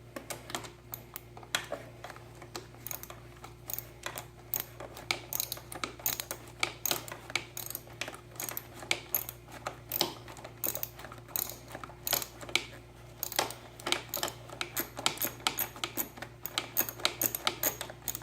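Ratchet with a 10 mm socket clicking in quick runs as it tightens the nut on a motorcycle clutch lever's pivot bolt.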